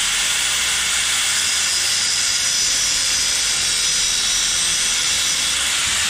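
Small cutoff wheel cutting into the crimped sleeve of a battery cable terminal: a steady hissing grind with a high whine that fades out near the end.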